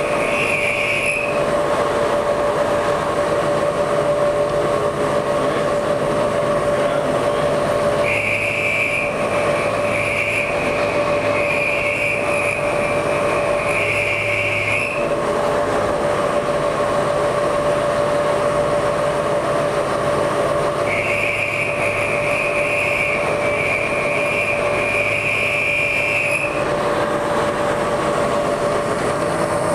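CNC vertical milling machine running a program, its spindle giving a steady whine while an end mill cuts a white plastic bar. A higher scraping cutting sound comes and goes in three stretches as the cutter engages the plastic, the longest lasting about seven seconds.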